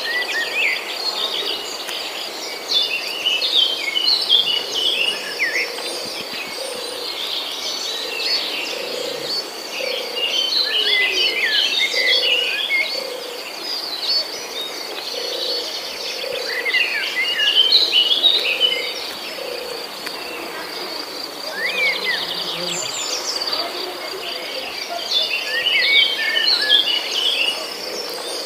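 Steady high trill of crickets or other insects, with bursts of quick twittering bird song every several seconds.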